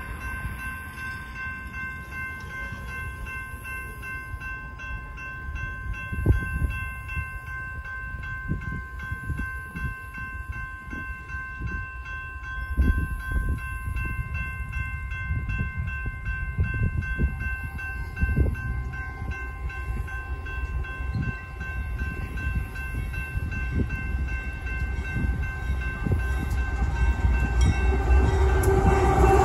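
Two GE diesel locomotives running light, a BNSF AC4400CW leading an ES44AC, approaching: a low engine and rail rumble that grows steadily louder. Over it a steady ringing of several high tones continues and stops near the end.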